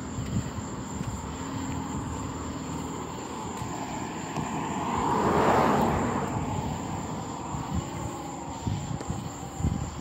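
A vehicle passing by: an even rush of noise swells to its loudest about five and a half seconds in, then fades away.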